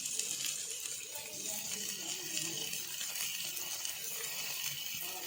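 Faint, steady sizzling of sauced food frying in a hot pan.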